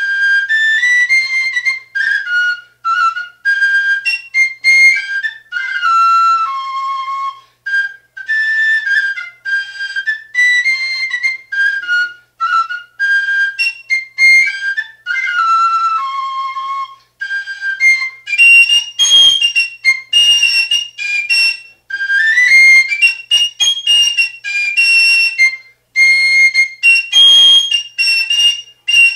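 Solo fife playing a traditional dance tune as a quick melody of short, separate notes. About eighteen seconds in, the tune moves up into a higher register.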